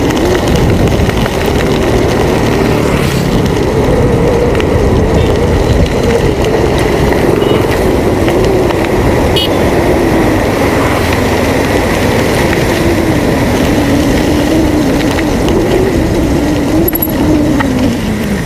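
Wind rushing over a handlebar-mounted camera's microphone while riding a bicycle on asphalt, with a droning hum that wavers in pitch and drops near the end.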